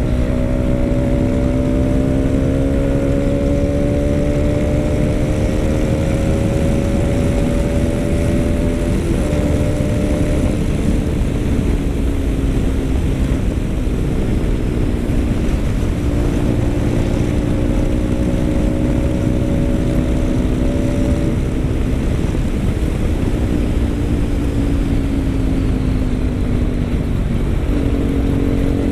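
Kawasaki RS200 single-cylinder engine running through an Akrapovic M1 exhaust at steady cruising revs. The pitch slowly climbs, drops sharply about a third of the way in and again about halfway, as at gear changes, and eases off near the end, over a steady low rumble.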